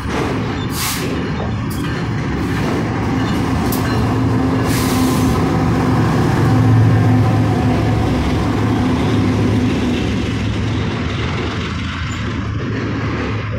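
Two freight trains passing at once on adjacent tracks: steel wheels rumbling and clacking over the rails, with sharp clacks in the first few seconds. The BNSF diesel locomotives leading an intermodal train pass close, their engine drone loudest about seven seconds in, then the rumble of double-stack container cars going by.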